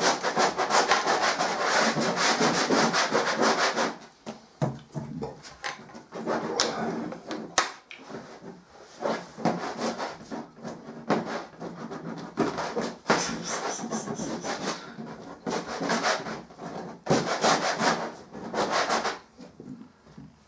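Coloured drawing sticks rubbed and scraped hard across a large upright painting surface. A dense run of scratchy strokes fills the first four seconds. After that come shorter bursts of rapid strokes with brief pauses, and a couple of sharp taps about seven seconds in.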